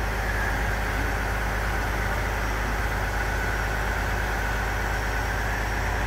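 Truck-mounted crane's diesel engine running steadily as it hoists a shipping container, with a steady higher whine above the engine note.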